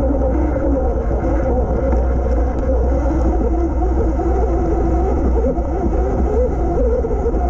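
Sur Ron X electric dirt bike's motor and drivetrain whining, the pitch rising and falling as the speed changes, under a heavy rumble of wind on the microphone.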